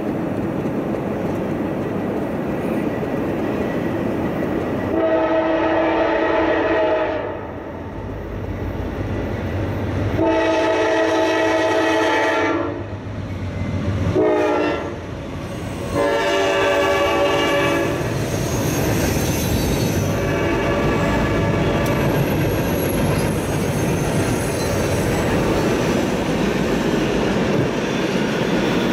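Freight train locomotive's air horn blowing the grade-crossing signal as the train approaches: two long blasts, a short one, then a long one. The rumble and clatter of the passing freight train follow near the end.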